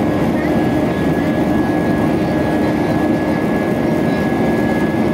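Airbus A320-200 jet engines heard inside the cabin from a window seat while climbing out after takeoff: a loud, steady engine noise with a thin, steady high whine running through it.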